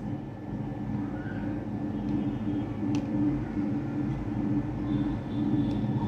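A steady, low mechanical rumble, growing a little louder near the end, with a single faint click about three seconds in.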